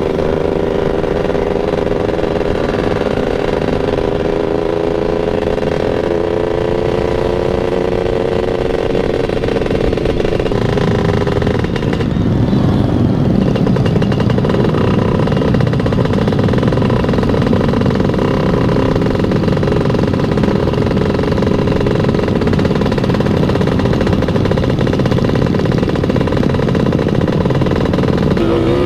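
Motorcycle engine running while riding, its pitch held steady and creeping slowly upward. From about twelve seconds in, a louder rough rushing noise covers it.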